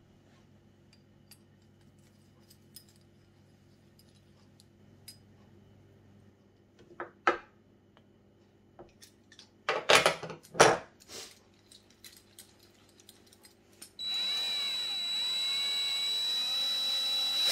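Metal parts clicking and clanking as the shaft, pipe bearing housing and handwheel are handled, louder around the middle. For the last few seconds a power drill runs steadily with a high whine, its pitch dipping and rising.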